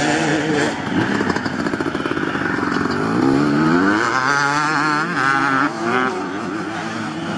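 Several two-stroke motocross bikes revving through a corner, overlapping engine notes rising and falling as the riders open and close the throttle, with a warbling high-revving note about halfway through.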